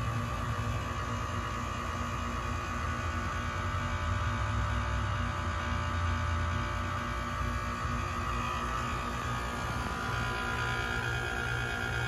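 Outdoor unit of a 2007 Goodman GSH13 heat pump in its defrost cycle, a steady hum with a faint high whine as the coil steams off.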